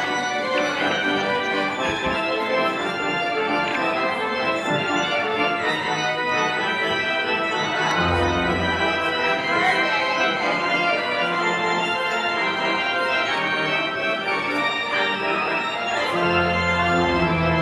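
Church organ playing a piece of sustained chords. Deep bass notes come in about eight seconds in and again near the end.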